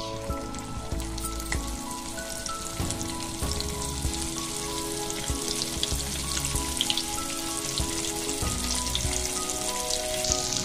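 Spice-coated fish steaks sizzling in hot oil in a frying pan. The steady hissing sizzle starts as the fish is laid into the oil. Background music plays throughout.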